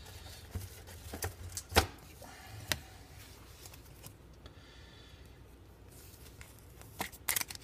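Trading card being slid into a rigid plastic top loader: light rubbing with scattered sharp plastic clicks. The loudest click comes about two seconds in, and a quick cluster of clicks comes near the end.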